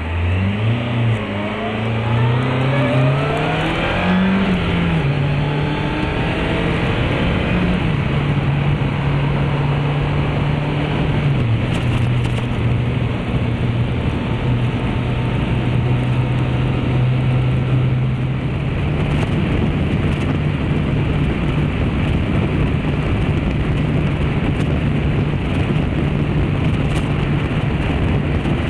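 Motorcycle engine accelerating, its pitch rising for the first few seconds and dropping at a gear change about four seconds in, then holding a steady note at highway cruising speed. An even rush of wind and road noise runs under it.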